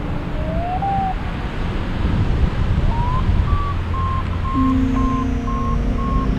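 Paragliding variometer climb tone over wind rushing across the microphone. A tone glides upward just under a second in, then from about three seconds in comes a string of short beeps at a steady high pitch, about two a second, signalling lift. A steady lower tone joins about two-thirds of the way through.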